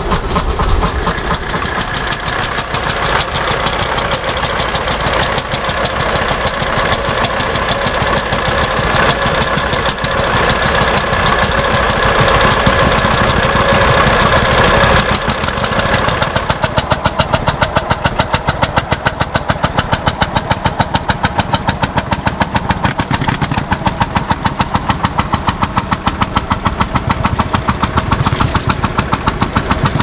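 Vintage farm tractor engine running. In the first half a steady high whine sits over it; from about halfway a fast, even beat takes over.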